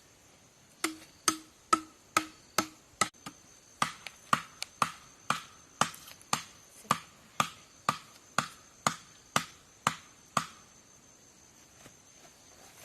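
A run of about twenty sharp strikes, roughly two a second, each with a short ringing tail, stopping about ten seconds in.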